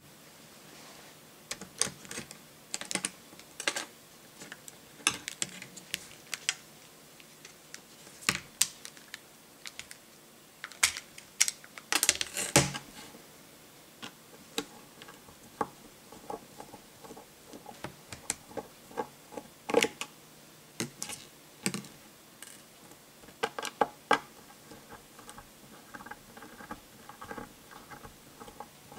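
Small screwdriver working screws out of a Datawind PocketSurfer2 handheld's casing: irregular sharp clicks and taps, bunched in a few quick clusters.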